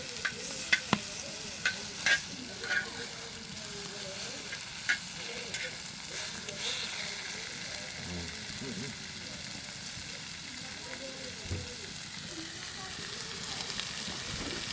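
Pork offal sizzling on a cast-iron cauldron lid (sotttukkeong) over a wood fire: a steady frying hiss, with several sharp pops and clicks in the first five seconds.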